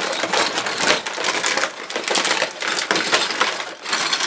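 Foil and plastic blind-bag packets rustling and crinkling as a hand rummages through a pile of them in a plastic storage bin. The crackle is dense and steady, with brief lulls.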